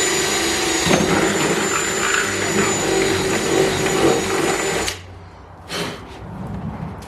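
A power drill running at speed, drilling a mounting hole for a wickerbill spoiler through the car's trunk lid. Its pitch shifts about a second in, and it stops suddenly about five seconds in.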